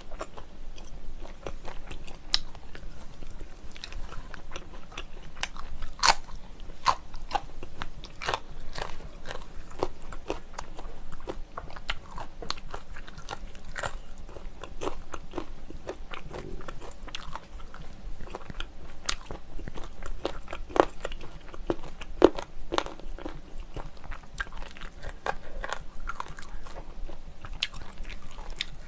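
Close-miked eating sounds of spicy cold noodles and pork belly: chewing and biting with many small, irregular crunchy clicks, a few louder crunches among them.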